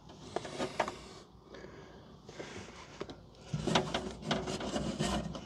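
Light handling sounds from a hand working inside a stripped car door: scattered small clicks, taps and rubs against the plastic door module and the metal inner panel, busier in the last couple of seconds.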